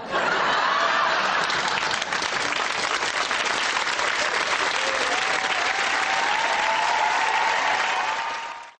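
Studio audience applauding, with some cheering voices, fading out quickly near the end.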